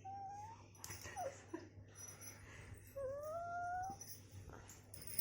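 A baby making small whiny, squeaky vocal noises: a short rising squeal at the start, a couple of brief falling squeaks about a second in, and one longer rising whine about three seconds in. A sharp click comes at the very end.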